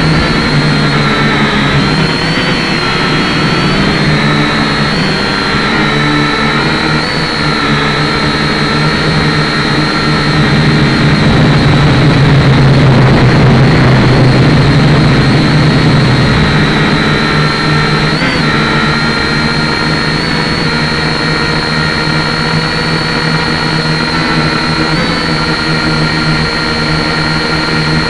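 Syma X5C quadcopter's four small electric motors and propellers whining steadily in flight, heard from the drone's own camera. The pitch shifts a little as the motors speed up and slow down, and it is louder for a few seconds midway.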